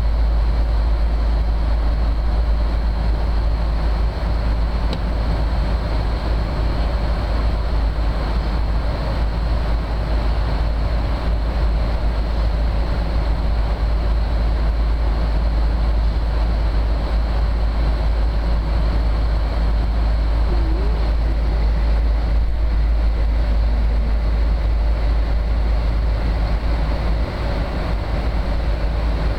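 Steady roar of an airliner cabin in flight: engine and rushing-air noise, heaviest in the deep bass, with a faint steady high tone above it.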